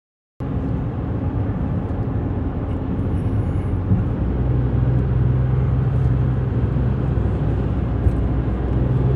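Steady road and engine noise of a car driving, heard from inside the cabin, with a low, even hum underneath. It starts abruptly about half a second in.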